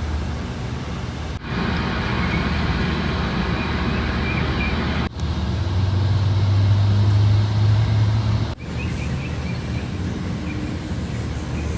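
Steady low hum of engines or running machinery, changing abruptly at three cuts about every three to four seconds, with a stronger low drone in the middle section.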